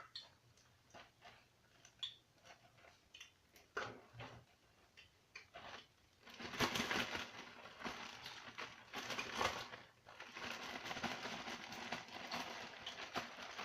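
Plastic bag with tilapia fillets and flour inside being handled with scattered crinkles, then shaken hard from about six seconds in, a dense continuous crinkling to coat the fish.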